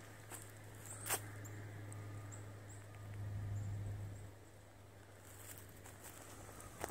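Footsteps on dry leaf litter, with one crisp crunch about a second in and another at the very end. Under them a low steady hum swells and fades away after about four seconds, with a few faint high chirps.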